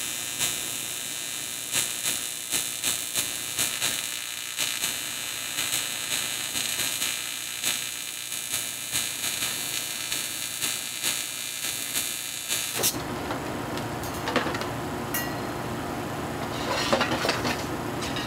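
TIG welding arc hissing steadily on the metal gas cap, pulsing about three times a second as filler rod is fed, then cutting off suddenly about 13 seconds in. After it, a few clicks and a clatter of thin metal filler rods being handled.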